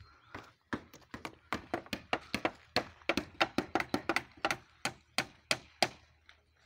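A quick, irregular run of sharp taps, several a second, starting under a second in and stopping about six seconds in.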